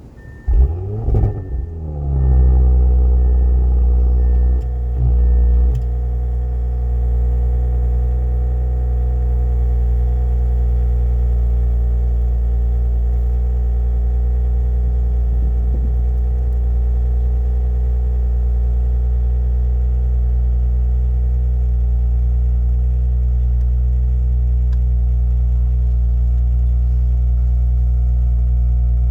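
2018 Audi S5 Sportback's turbocharged V6 cold-starting: the starter cranks briefly, the engine catches about two seconds in with a loud flare, then holds a high idle that settles by about six seconds into a steady cold fast idle.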